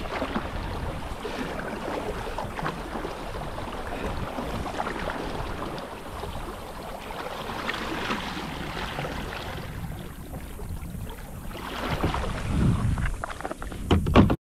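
Kayak paddle strokes dipping and splashing in the water, with wind on the microphone. It gets louder near the end as the paddler reaches the fishing jug.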